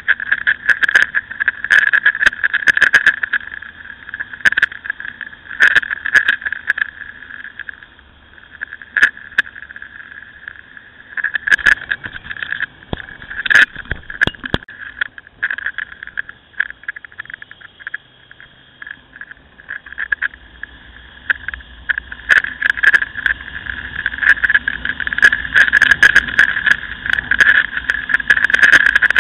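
Riding noise from a camera on a moving Ducati Scrambler motorcycle: wind rush that swells and fades, with many sharp knocks and rattles from the camera mount. It is quieter through the middle and louder again near the end.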